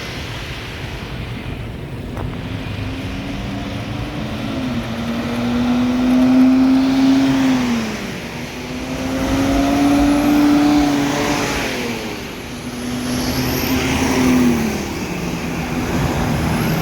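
Tour bus basuri (telolet) musical air horn sounding four long, low notes one after another, each sliding down in pitch as it ends, over traffic noise.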